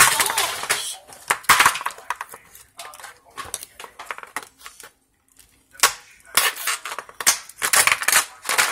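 A knife tip stabbing and scraping at ice in a plastic ice cube tray: irregular sharp clicks and scrapes, with a short pause around the middle and then a quicker run of strikes near the end.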